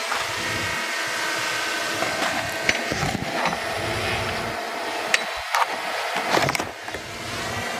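Engine of earth-moving machinery running steadily, with a few sharp knocks and short bursts of clatter as stone and soil are handled.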